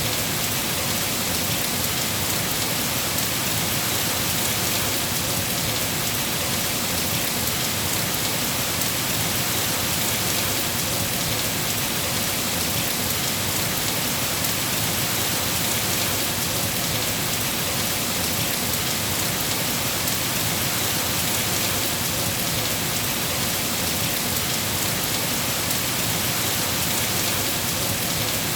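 Rain falling steadily: an even hiss that does not change, with no thunder.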